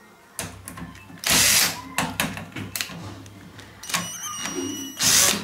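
Cordless drill-driver working a screw in the aluminium bottom profile of a sliding shower-cabin door, running in short bursts with clicks of handling in between.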